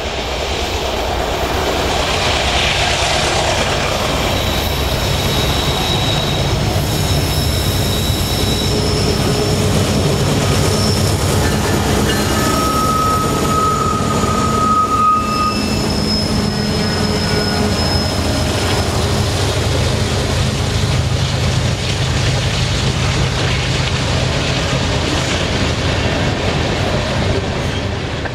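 Canadian Pacific freight train climbing a mountain grade out of a tunnel: the GE ES44AC diesel-electric locomotives run with a steady loud rumble as the lead unit passes, followed by hopper cars rolling by. Thin high wheel squeals come and go several times along the way.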